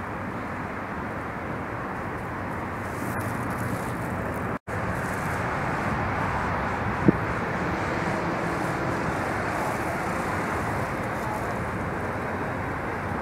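Steady city traffic noise: cars running along a busy road. The sound drops out for a split second about four and a half seconds in, and a short, sharp sound stands out about seven seconds in.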